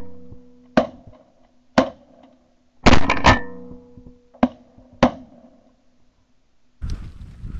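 Guitar music with sharp, punchy hits: single strikes about one and two seconds in, a quick cluster near three seconds, and two more hits around four and a half and five seconds, each leaving a held low note. The music stops about five and a half seconds in. Near the end, open outdoor background noise with wind on the microphone takes over.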